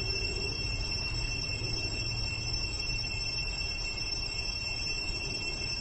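Steady room tone in a large hall: a low hum with a few thin, high, unchanging tones over it.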